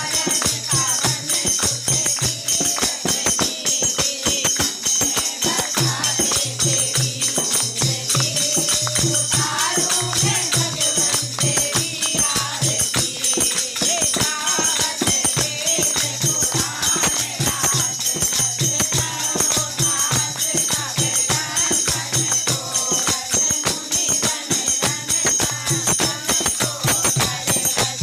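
A group of women singing a Hindi devotional song together, keeping time with rhythmic hand-clapping and jingling percussion.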